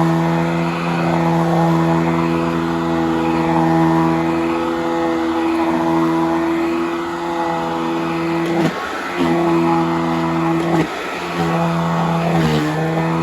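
Hoover Model 115 upright vacuum cleaner running steadily on a rug with a high hum, its belt-driven roller agitating the rug. Three times in the last few seconds the pitch briefly dips and recovers.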